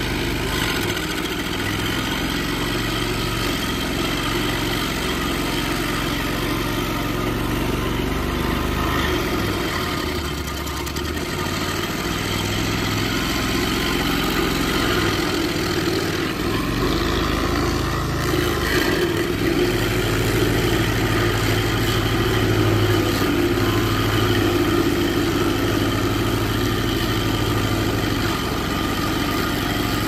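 Stump grinder with an air-cooled engine running steadily while its spinning cutter wheel grinds into a tree stump and throws wood chips. The low engine note shifts a few times as the wheel bites into the wood.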